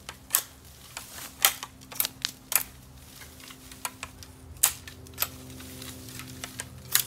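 Pruning shears snipping at a green bamboo pole, trimming off its side shoots: about ten sharp clicks and snaps at irregular intervals.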